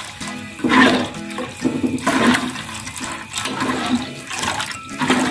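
Water pouring from a plastic jug into a wok of chili spice paste and egg, splashing in and swelling in several surges.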